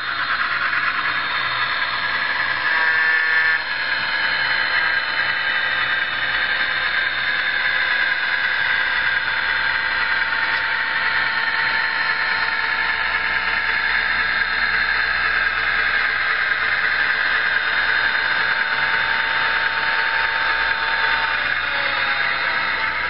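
A train running: a steady high-pitched hiss with several held high tones, briefly louder about three seconds in.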